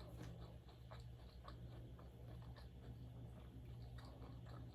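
Faint chewing with soft, scattered mouth clicks, heard close up, over a low steady hum.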